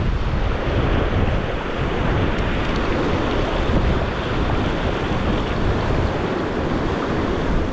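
Small surf washing up and back over the sand at the water's edge, with wind buffeting the microphone in a steady rumble.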